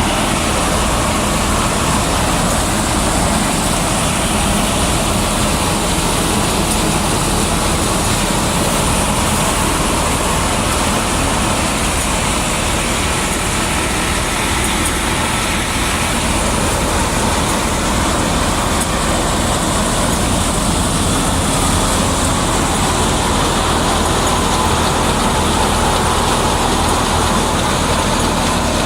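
Wheat-harvesting machinery running steadily under load: a heavy diesel engine's even drone under a dense mechanical din.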